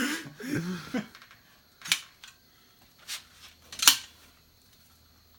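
A short voice sound in the first second, then three sharp clicks about a second apart, the last the loudest, as a stuck metal mechanism is pulled on by hand.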